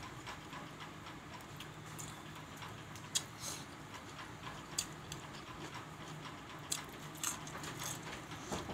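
Mouth sounds of a person eating rice and chicken by hand: chewing with scattered short, sharp smacking clicks, the loudest about three seconds in, over a steady low hum.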